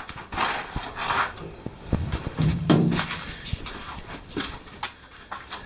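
Scattered clicks and knocks of handling and movement, with breathy noise early on and a short low voiced sound about halfway through.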